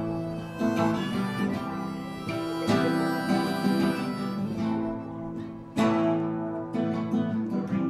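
Acoustic guitar strummed, with a harmonica played from a neck rack over it, in a solo folk instrumental passage.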